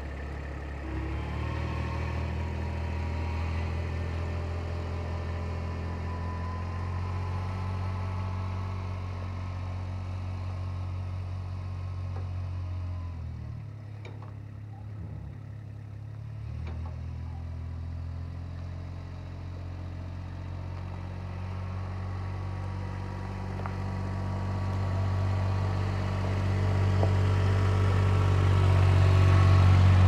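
Utility vehicle's engine running steadily while it tows a portable sawmill away. The engine grows fainter around the middle, then louder near the end as the vehicle drives back close by.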